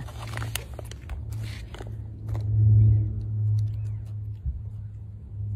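A toddler chewing crunchy rolled tortilla chips (Takis Fuego) and handling the foil snack bag, heard as a run of small crackles and crunches in the first couple of seconds with a few more later. Under it runs a steady low hum that swells for about a second in the middle.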